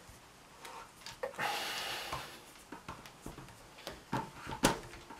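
Light clicks and handling noise as the threaded air cylinder is turned by hand off a Hatsan Gladius PCP air rifle, with a soft hiss about a second and a half in and a sharper click near the end.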